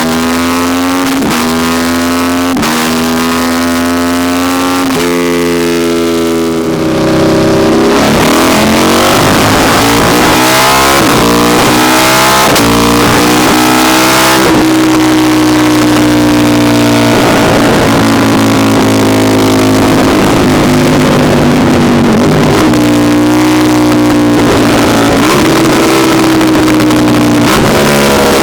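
KTM 1290 Super Duke's V-twin engine, through an Austin Racing exhaust, loud at wide open throttle on a dyno. The rider shifts up with the quickshifter without closing the throttle, so the note climbs in short steps, each broken by a quick dip in pitch at the shift. It gets louder about seven seconds in, then rises and falls in longer sweeps.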